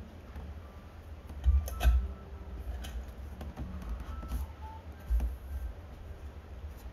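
Scattered light clicks and knocks of wooden go-bars and the guitar body being handled in a go-bar deck, the loudest about two seconds in, over a low rumble of handling.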